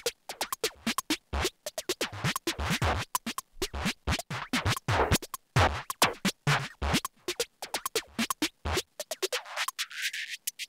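Electronic background music with choppy, scratch-like stuttering beats. Near the end the bass drops out as a filter sweeps up through the sound.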